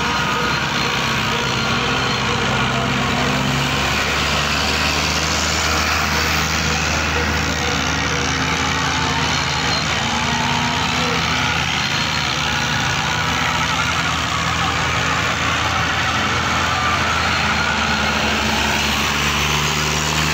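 Diesel farm tractor engines running steadily under load as the tractors churn their rear wheels through loose sand.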